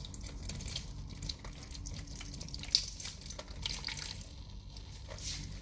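A thin stream of water trickling from a water-filter faucet, with irregular drips and small splashes as a cat laps at it.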